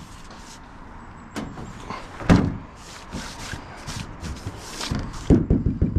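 Knocks and scuffs on a school bus's sheet-metal roof as someone shifts position on it, with one sharp thump a little after two seconds in and a run of knocks near the end, and brief rustling in between.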